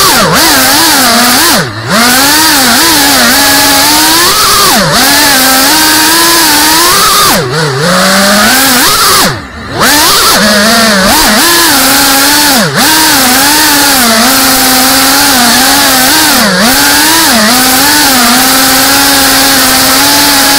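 Cinelog 35 cinewhoop FPV quadcopter's brushless motors and propellers in flight, a loud buzzing whine whose pitch keeps rising and falling with the throttle. It dips briefly about two seconds in and twice more around the middle, where the throttle is chopped.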